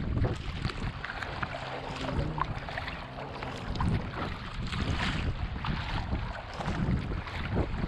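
Surfski paddling at sea: the paddle blades splash in and out of the water with each stroke over the rush of choppy water along the hull, with wind buffeting the microphone.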